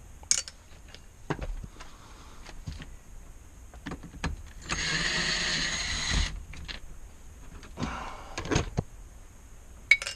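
A cordless drill-driver runs in one steady burst of about a second and a half, midway through, while removing a fastener from the dash. Scattered clicks and knocks of trim pieces and tools being handled come before and after it.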